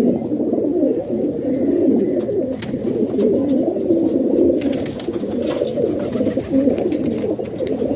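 Domestic pigeons cooing without a break, several voices overlapping into a continuous low, rolling chorus.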